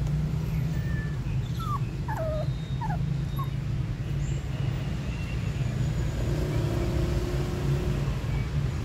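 Puppies whimpering: a few short, high squeaky whines about two seconds in, over a steady low rumble.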